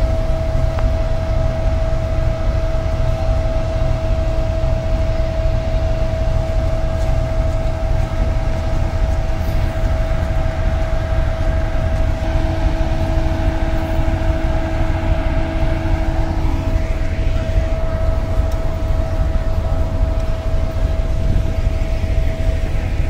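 GE U40 diesel-electric locomotive's engine running steadily, a low rumble with a constant high whine over it.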